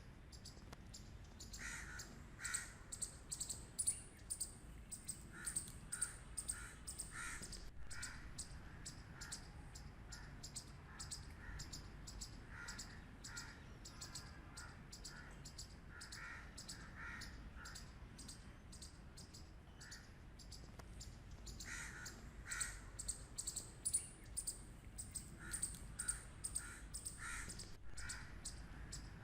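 Squirrel barking in bouts of short, rapid, repeated calls that pause and resume, over a fast, high, constant clicking.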